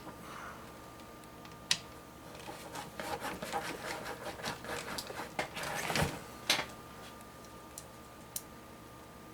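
PC case fans and plastic case parts being handled: scattered clicks and knocks, with a few seconds of rustling and rubbing in the middle.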